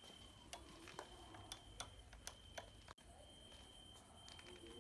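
Faint, uneven clicks of push-buttons being pressed on a telephone-shaped exhibit, about seven in under three seconds, ending abruptly. A faint steady high-pitched whine runs underneath.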